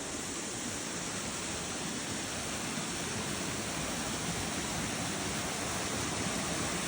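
Waterfall: a steady rush of falling water, growing slightly louder toward the end.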